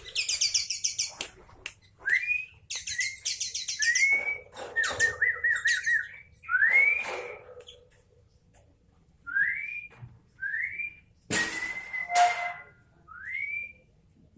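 Sooty-headed bulbul (kutilang) calling: short rising whistled notes repeated several times, broken by quick bursts of dry, high chattering (the 'cetrekan' chatter), with a short trill partway through.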